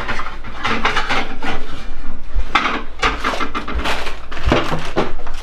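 Dishes and utensils clinking and clattering, a dense run of small irregular knocks and rattles.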